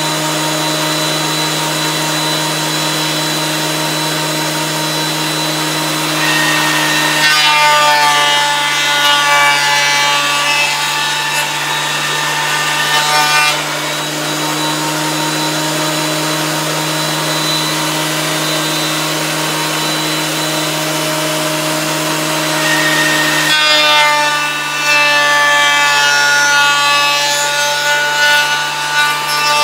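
Electric wood planer running steadily, with two boards fed through it one after the other; each cut lasts about six seconds and is louder and denser than the idle hum between them.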